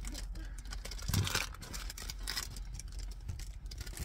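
Rustling, scraping and handling noises with a soft thump about a second in, as a window cover is fitted against a minivan's window from inside.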